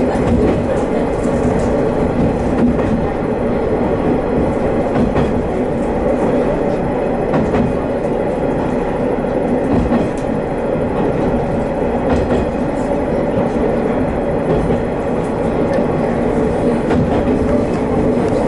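Haimo 330 diesel railcar running along the line. Its engine drones steadily, with scattered light clicks from the wheels on the track.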